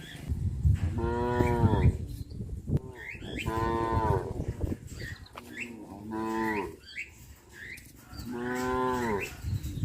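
Cattle mooing: four long moos about two and a half seconds apart, each bending down in pitch at its end.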